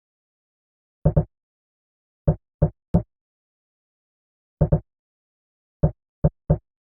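Short chopped slices of a single sampled audio clip, played from a software sampler: about ten brief pitched blips in an uneven, stuttering pattern, some in quick pairs, with dead silence between them.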